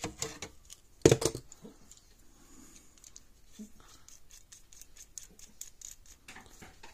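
Small handling clicks and light ticks of a panel-mount fuse holder and its threaded nut being worked by hand, after one sharp knock about a second in.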